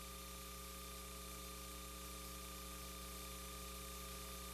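Faint steady electrical hum with a low hiss underneath, unchanging throughout.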